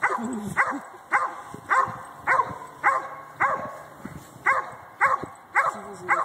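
A police-trained dog barking steadily at a man who stands still in front of it, as in a bark-and-hold, about two short, sharp barks a second with one brief pause near the middle.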